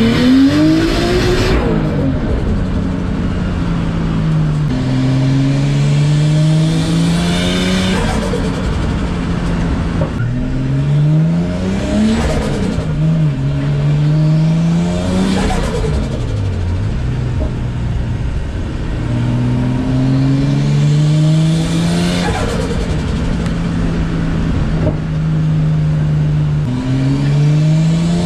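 RB25DET-engined Nissan S14 driven hard: the engine note climbs and drops back again and again as the car pulls and the throttle comes off. Brief rushes of noise come with several of the drops.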